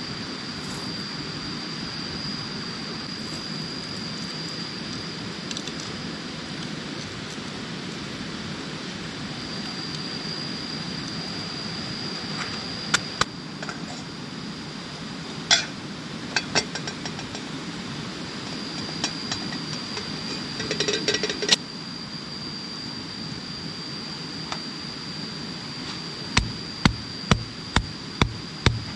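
Portable gas canister stove burning with a steady hiss, with scattered metal clinks of a pot lid. It stops about three-quarters of the way through. Near the end, a hand-held stone starts pounding coffee beans on a large rock, about two sharp knocks a second.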